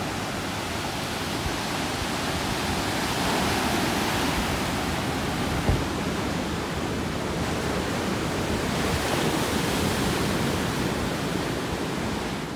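Pacific Ocean surf breaking and washing up the shore, a steady rushing noise that swells and eases with the waves. One brief low thump comes about halfway through.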